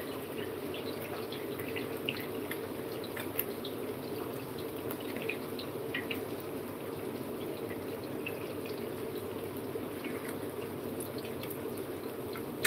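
Kitchen tap running steadily into a sink, with scattered faint crackles.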